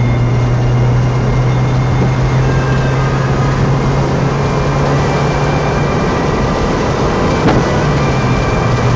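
Mazda MX-5's four-cylinder engine pulling at a steady speed, under constant wind and tyre noise. The engine note eases about six seconds in and picks up again near the end, with a single short knock between.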